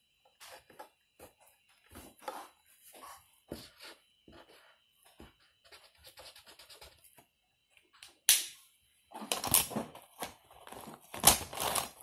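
Felt-tip marker drawing on an index card on a tabletop: short scratchy strokes and light taps of the tip on the paper. From about nine seconds in come louder bumps and rustles as the card and marker are handled on the table.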